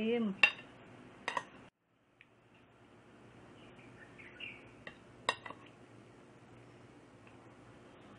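A metal spoon clinking against a plate while food is served onto rice: two sharp clinks in the first second and a couple more about five seconds in.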